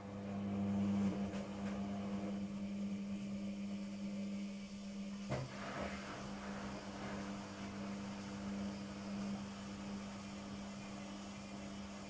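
LOGIK front-loading washing machine spinning its drum on the spin cycle. The motor comes up at the start and swells within the first second, then holds a steady hum. There is a single clunk about five seconds in.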